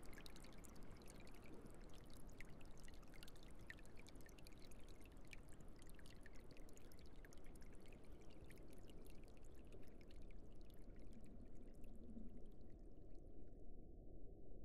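Faint underwater ambience: a steady low watery rush scattered with fine crackling. The crackling and the higher part of the sound fade out about 13 seconds in, leaving only the low rumble.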